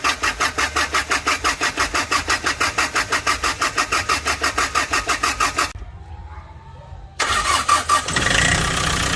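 Hyundai Porter 2 diesel engine cranked on the starter, a fast even chugging for about six seconds without catching. After a short pause it is cranked again, fires, and settles into a steady run near the end.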